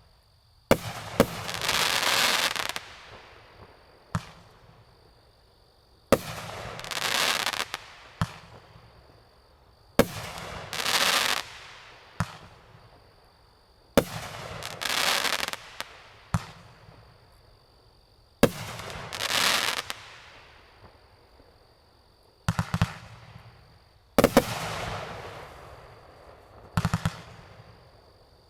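MAD Fireworks 'American Muscle' 22-shot 500-gram cake firing shot after shot. About every four seconds a sharp bang is followed by about two seconds of loud crackling, with lighter single thumps of the launches in between.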